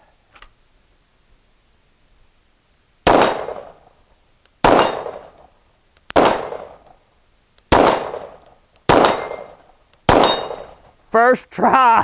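Six shots from a Phoenix Drake 9 mm competition pistol, spaced about one and a half seconds apart, each sharp report trailing off briefly, as steel plates on a plate rack are shot down. Near the end comes a short excited burst of voice.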